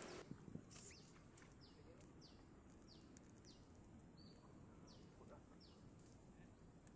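Faint bird calling: a run of short, high notes, each falling in pitch, repeated about every two-thirds of a second, over a steady high hiss.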